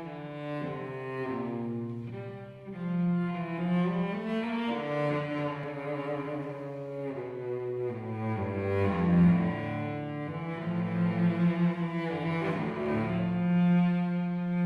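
Cello played with the bow, a slow line of long held notes with vibrato, accompanied by grand piano.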